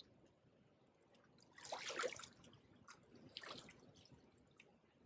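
Water splashing at the river's edge: one loud splash about two seconds in and a smaller one about a second and a half later, as a caught barbel is let back into the river.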